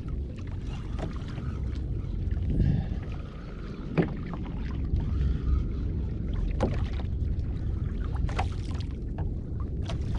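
Steady low rumble of water moving around a fishing kayak out at sea, with a few sharp knocks at irregular moments.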